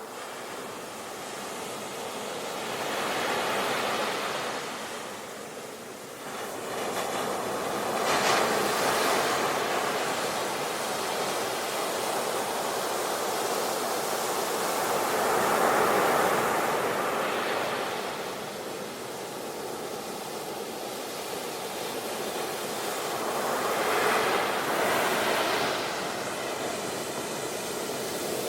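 Ocean waves breaking on a beach: a continuous wash of surf that swells and ebbs about four times as the waves come in.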